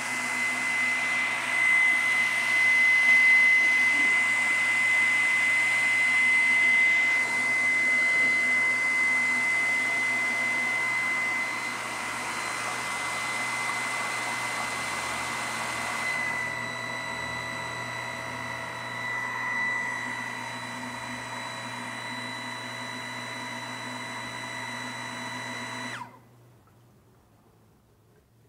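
Small electric centrifugal water pump running under a water test, a steady motor whine over the hiss and splash of water spraying from a leaking fitting. The spray noise eases about halfway through, and the pump cuts off suddenly a couple of seconds before the end.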